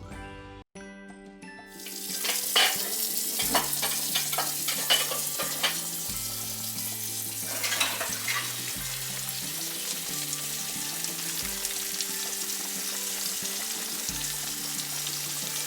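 Breaded pork chops frying in hot oil: a steady sizzle that starts about two seconds in, with sharp crackles and pops over the next several seconds, over background music.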